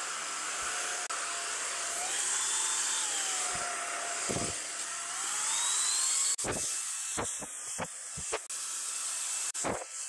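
Corvan K9 Pro cordless stick vacuum running: a steady whine and rush of air whose pitch drifts slightly up and down. In the second half there are several short knocks.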